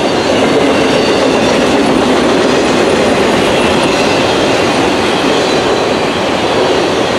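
Freight train of autorack cars rolling past, their steel wheels running steadily on the rails, a continuous loud noise.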